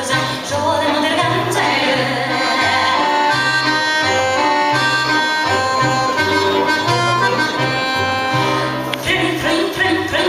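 Live klezmer music: an accordion playing long, steady chords over a double bass plucking low notes in a regular rhythm.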